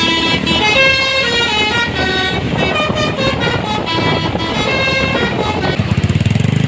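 Bus 'telolet' multi-tone musical horn playing a quick tune of short notes that step up and down in pitch. Near the end an engine takes over with a fast low pulsing.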